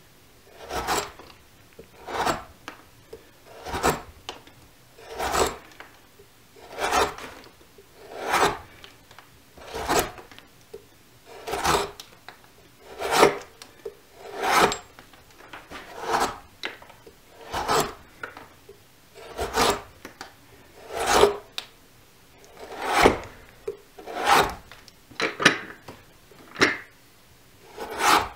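Carving blade slicing into green birch, hollowing out the bowl of a wooden mug: a short scraping cut about every second and a half, each stroke taking off a shaving.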